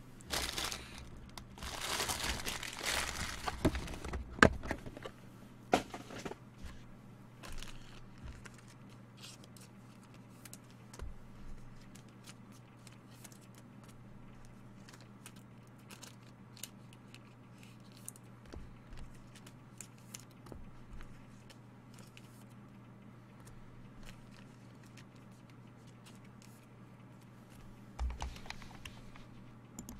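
Packaging wrapper crinkling and tearing for the first few seconds, as a card pack or box wrap is opened. This is followed by scattered faint clicks and taps of cards being handled, a short rustle near the end, and a steady low hum throughout.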